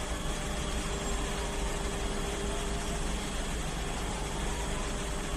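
Fire engine's diesel engine idling steadily: a low, even hum with a hiss over it.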